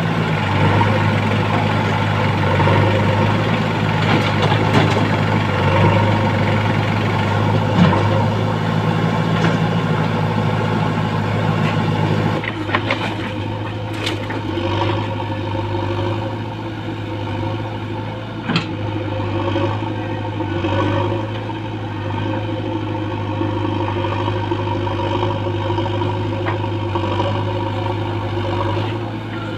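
Diesel engines of a JCB 3DX backhoe loader and a tractor running steadily at close range while the backhoe loads soil into the tractor's trolley. About twelve seconds in the engine note changes abruptly, and a few sharp knocks come after it.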